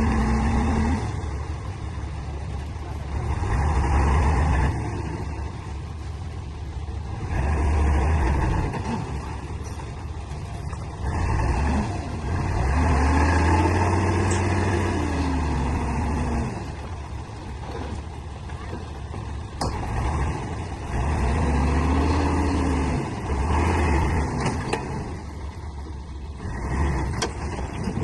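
Heavy diesel machinery engine working under load. It rises and falls in pitch and loudness in repeated surges every few seconds, as the revs climb and drop through the work cycles.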